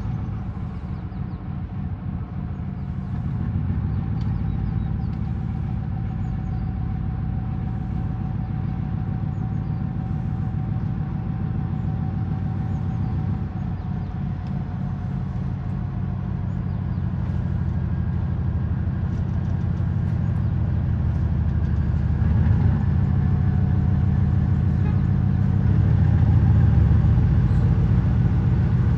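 A 2TE10V diesel locomotive's 10D100 two-stroke opposed-piston diesel engine running with a deep, steady drone and a faint whine over it in the first half. It grows louder about three-quarters of the way through, as the engine works harder.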